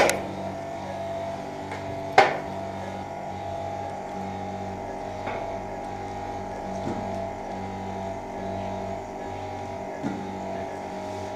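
Steady hum of operating-room equipment, several constant tones held throughout, with two sharp clicks, one at the start and one about two seconds in.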